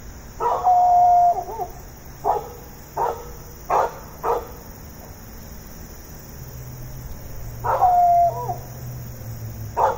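A dog barking and howling: a drawn-out bark-howl that wavers at its end, then four short barks in quick succession, then a second drawn-out bark-howl and one more short bark near the end. Insects chirr steadily in the background.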